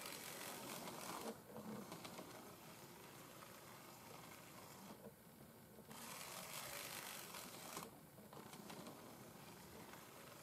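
The motor and gears of a World Kougei N gauge model C tank locomotive, running along the track as a faint whir. It grows louder twice: in the first second or so, and again from about six to eight seconds in.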